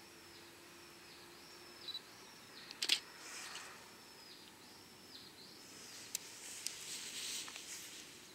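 Quiet outdoor ambience with a bird repeating a short high call, rising then falling, about one and a half times a second until some five seconds in. A single sharp click about three seconds in is the loudest sound.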